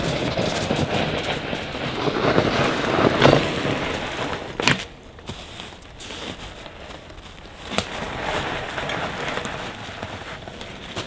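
Snow crunching under footsteps and the tyres of a fat bike being pushed by hand, louder for the first four seconds or so. Two sharp clicks come about five and eight seconds in.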